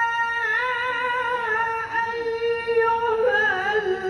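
A Quran reciter holds a long, melodic note on 'yā' of 'yā ayyuhalladhīna āmanū' in tilawah style. The voice wavers in ornamental turns about half a second in, then moves into 'ayyuhā' near the end.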